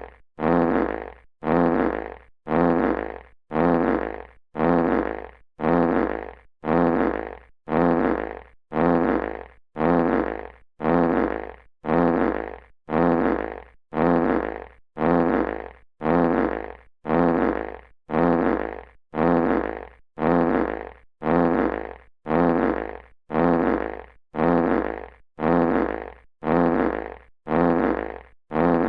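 Classic fart sound effect repeated in a loop: the same short, buzzy fart a little less than once a second, each one starting sharply and fading out.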